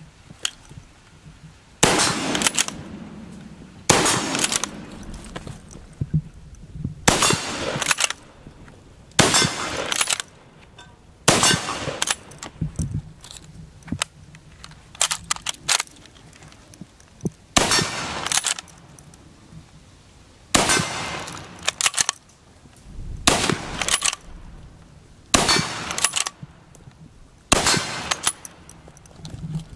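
Madsen M47 bolt-action rifle in .30-06 firing ten shots: five about two seconds apart with the bolt worked between them, then a pause of about six seconds for a stripper-clip reload, then five more at the same pace.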